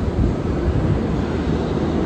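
New York City subway train running through the station: a steady low rumble of wheels on rail and traction motors, growing a little louder near the end.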